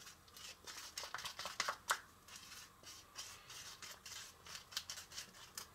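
Small spatula stirring thick chocolate frosting in a small bowl, with faint, irregular scrapes and light ticks against the bowl.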